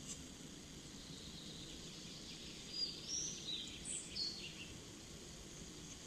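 A small bird giving a quick run of short, high chirps a little under halfway in, over a faint steady hiss of the woods.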